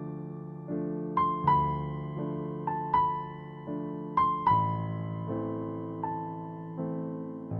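Soft background piano music: a slow melody of struck notes over sustained chords that change every second or so.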